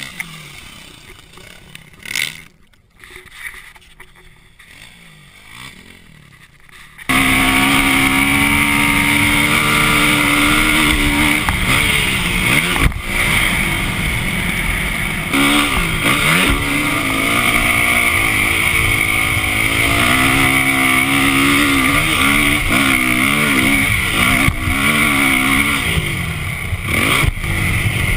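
Dirt bike engine, faint and distant for the first few seconds, then loud and close from about seven seconds in, heard from the rider's own bike. Its pitch rises and falls over and over with the throttle as it rides through the sand.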